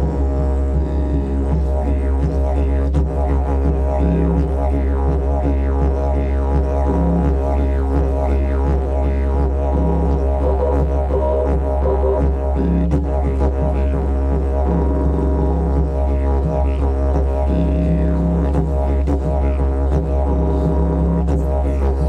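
Didgeridoo playing a continuous low drone, its overtones sweeping up and down throughout.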